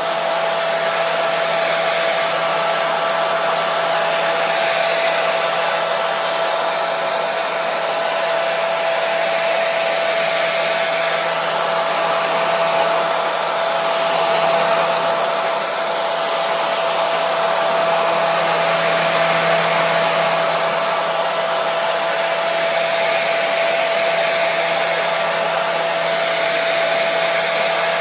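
Hair dryer running steadily: a continuous airy rush with a steady whine from its motor and fan, used as a white-noise sound for lulling babies to sleep.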